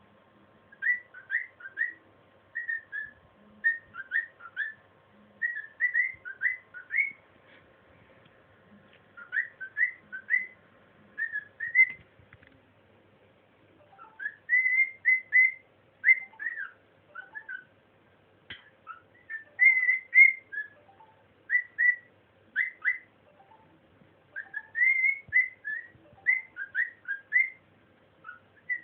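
Pet cockatiel whistling a learned tune: phrases of short, rising whistled notes, several a second, broken by brief pauses between phrases.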